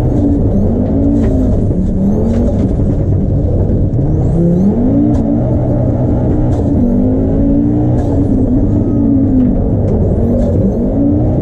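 Audi Quattro Group 4 rally car's turbocharged five-cylinder engine heard from inside the cabin under hard acceleration. Its note climbs and drops back again and again as the car goes through the gears, with short sharp cracks scattered between.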